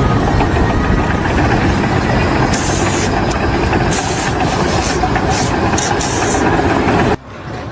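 Loud, steady running of a heavy engine, such as a truck or construction machine, which stops abruptly near the end.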